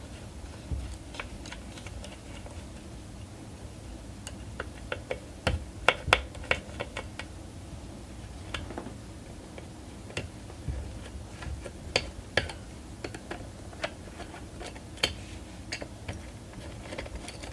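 Irregular small clicks and ticks of a screwdriver turning out the small screws of a Radeon HD 4870 X2 graphics card, with light metal taps as parts are handled. A few sharper clicks stand out about six and twelve seconds in.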